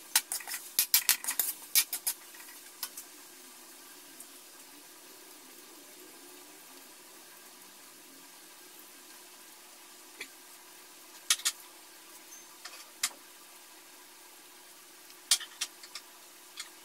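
Metal spatula scraping and clattering against an aluminium wok as sliced onions are stirred, for the first two or three seconds. After that the onions sizzle faintly and steadily in the pan, with a few sharp clicks here and there near the end.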